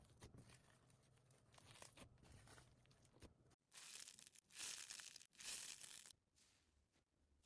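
Slime being squished and pulled apart: soft crackling clicks, then after an abrupt break a louder hissy tearing sound in two stretches, fading back to faint clicks near the end.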